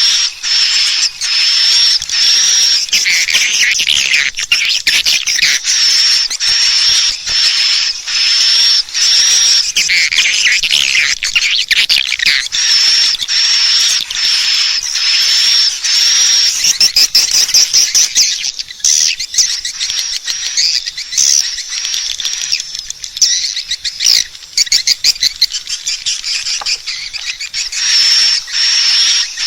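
Swiftlet lure call: a dense, loud stream of high, repeated chirping twitters, about two a second, over rapid clicking. Past the middle the chirps thin for several seconds, leaving mostly clicks and scattered twitters, and they come back near the end. It is the call played from nest houses to draw swiftlets in.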